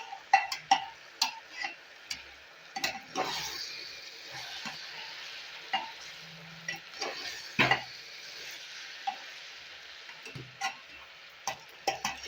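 Wet spice masala sizzling in a pressure cooker while a spoon stirs it, with repeated sharp scrapes and knocks of the spoon against the metal pot. The sizzle swells about three seconds in, after a little water has been added to the frying masala.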